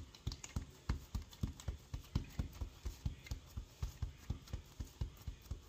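Hands patting and pressing a masa-dough cheese pupusa flat, soft slaps repeated about three times a second.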